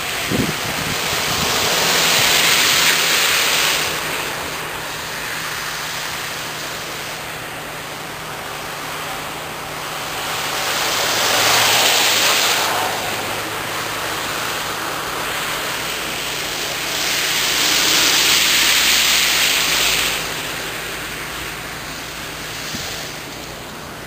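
Traffic passing on a slushy, snow-covered road. Three vehicles swish by, each a tyre hiss that swells and fades over a couple of seconds, about two, twelve and eighteen seconds in. A steady rush of wind and a low hum lie beneath.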